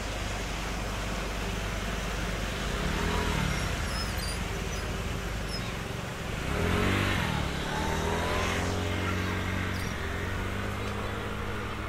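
Car engine running close by, its pitch dipping and then rising about seven seconds in, where it is loudest, then holding steady, over a constant rush of background noise.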